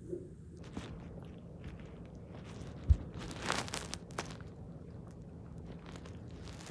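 Close crunching and crackling right at the phone's microphone, with one short, loud low thump about three seconds in.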